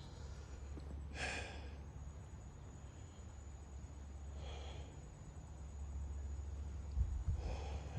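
A man breathing heavily: three loud breaths about three seconds apart, over a steady low rumble, with a short low thump near the end.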